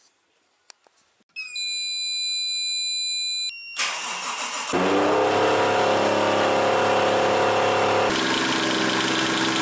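Toyota 1JZ-GTE turbocharged straight-six being started. About a second and a half in, a steady high electric whine sounds for about two seconds; then the starter cranks and the engine catches about five seconds in and runs fast, settling about eight seconds in. This is the start at which a hard knock appeared, which the owner fears is a connecting rod.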